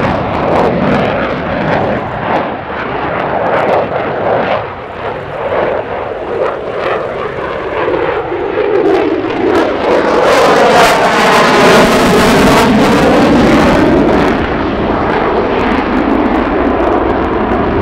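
F-16 Fighting Falcon's single jet engine running in afterburner during a demonstration pass: loud, steady jet noise that dips briefly about a third of the way through, then swells to its loudest a little past the middle with a sweeping, phasing sound as the jet passes, easing slightly near the end.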